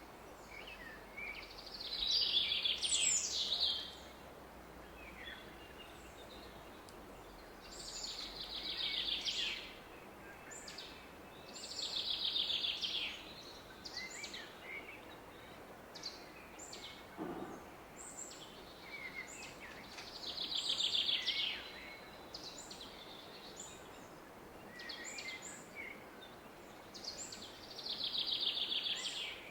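A songbird repeating a trilled song phrase of about two seconds, six times, with shorter chirps from other birds between, over the steady rush of a distant river.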